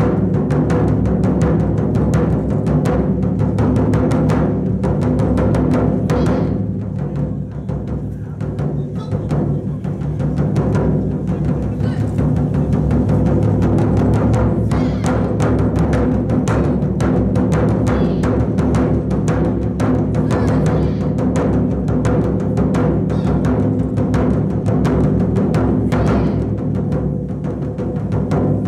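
Ensemble of Japanese taiko drums, barrel drums on slanted stands and large drums, struck with sticks in a fast, dense, continuous rhythm. The drumming is briefly softer about seven seconds in.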